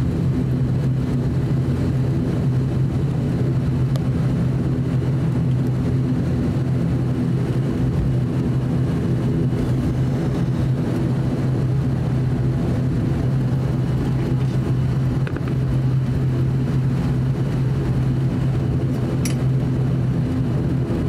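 Steady drone of an ATR 42-600's Pratt & Whitney PW127 turboprop engine and propeller at low taxi power, heard inside the cabin: an even hum with a strong low tone.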